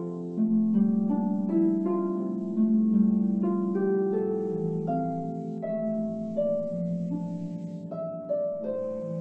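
Full-size harp being played, with plucked notes ringing over one another in a continuous melody over low sustained bass notes, heard over a video call.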